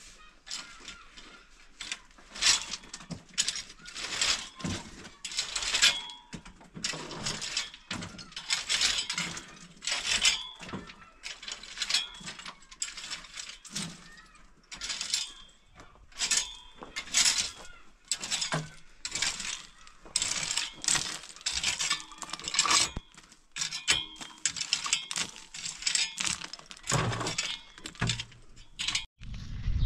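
Irregular run of metallic clattering and scraping strokes, some with a faint ring, like metal pots, dishes or utensils being handled.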